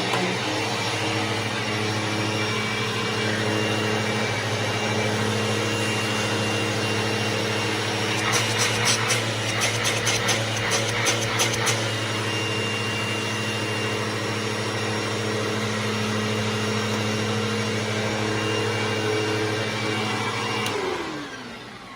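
Bissell Momentum 82G7-1 upright vacuum running steadily, its brush roll on the noisy side, which the owner puts down to bearings due for replacement. A few seconds of rattling clicks come in the middle. Near the end it is switched off and winds down with a falling pitch.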